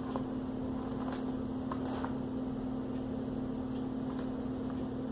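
Steady low background hum with a constant pitch, with a few faint, light clicks about one and two seconds in.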